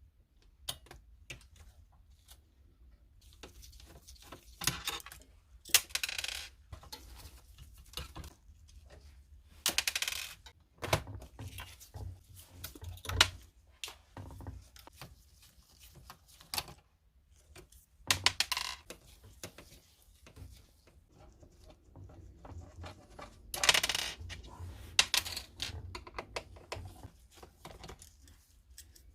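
Irregular clicks, taps and clattering of small plastic and metal parts and tools while a Canon printer is taken apart, with several louder clusters of rattling knocks.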